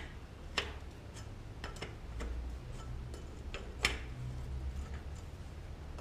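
A few light, scattered clicks and taps from hands handling metal parts under a motorcycle engine, the sharpest about four seconds in, over a faint low steady hum.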